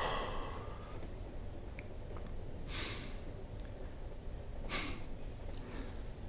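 Soft close-miked breaths, about three of them a couple of seconds apart, with a few faint clicks, over a steady low rumble.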